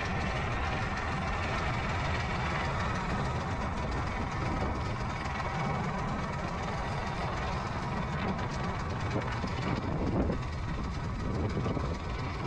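An engine running steadily: a low hum under an even noise, with no breaks.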